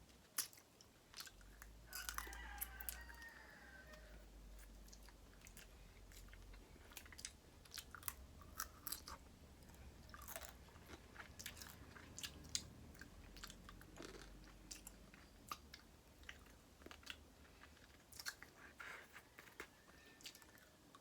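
Quiet, close-miked chewing of seafood-boil food, with many scattered sharp mouth clicks and crunches, over a faint low hum.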